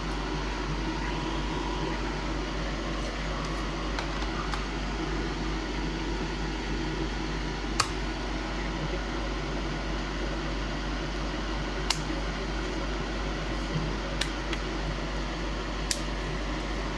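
Steady fan-like whir, with a few sharp, isolated clicks of small plastic parts as a Game Boy Advance SP is fitted back together.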